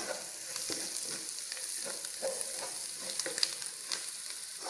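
Wooden spatula stirring and scraping an onion, garlic, green chilli and herb masala sautéing in oil in a nonstick pan: a steady sizzle under scraping strokes about twice a second.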